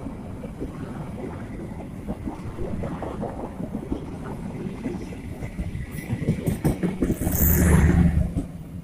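Passenger train coaches rolling past, their wheels clattering irregularly on the rails. It gets louder near the end as the coaches pass close by.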